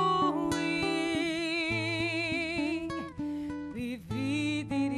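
A woman singing a Sicilian folk serenade in dialect. She holds one long note with vibrato for about three seconds, then takes up the next phrase near the end. Under her voice a nylon-string classical guitar is played fingerstyle.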